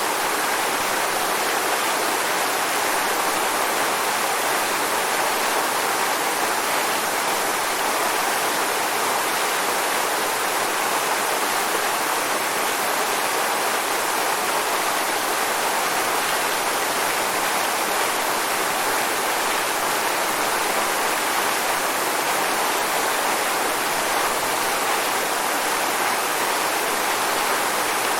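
Waterfall: a steady, unbroken rush of falling water, strongest in the mid and upper range.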